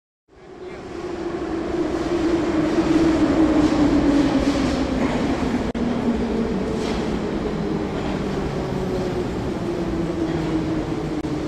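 Metro train car noise fading in within the first second: a steady rumbling hum with a whine that slowly falls in pitch.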